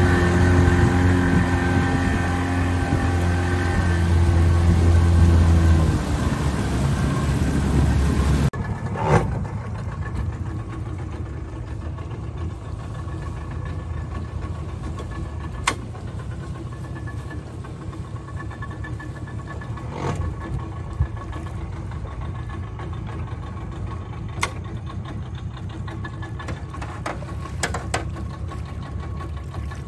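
A motor engine running, loud at first, with its deep tone dropping about six seconds in. After an abrupt change a little past eight seconds it runs quieter and steady, with a few sharp clicks now and then.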